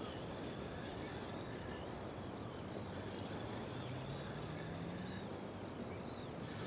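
Steady outdoor background noise by open water, with a faint low hum that rises slightly in pitch around the middle.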